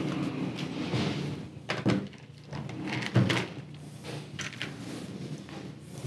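A few scattered knocks and clicks of tools and parts being handled on the TV's metal back panel, about five in all, over a low steady hum.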